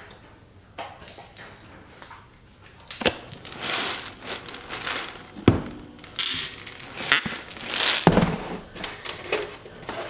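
Dry pet kibble rattling and pouring out of a large plastic storage container, with about three sharp knocks of plastic between the pours.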